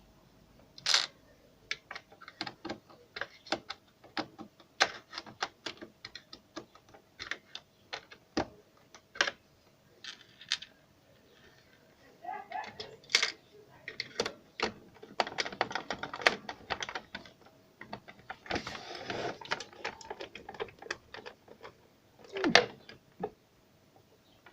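Irregular clicks and light clatter of small plastic and metal parts being handled during work on a radio-cassette player's tape mechanism, growing busier past the middle.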